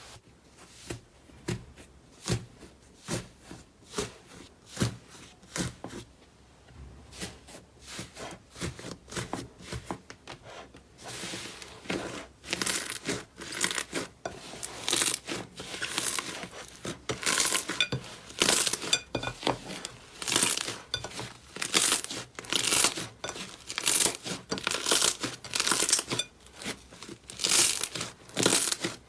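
Slime being squeezed and pressed by hand, giving wet crackling and popping sounds. Softer pops come about once a second at first, then from about a third of the way in the crackles get louder and come in quick rhythmic squeezes.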